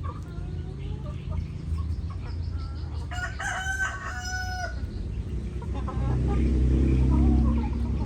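Chickens clucking, with a rooster crowing once about three seconds in, lasting about a second and a half. A low engine hum comes in near the end.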